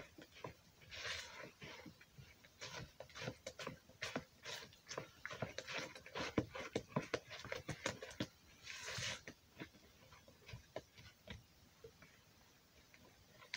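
Banana rice bread batter being stirred by hand in a plastic mixing bowl: an irregular run of wet squelches, clicks and scrapes of the utensil against the bowl, with a couple of brief hissy swishes.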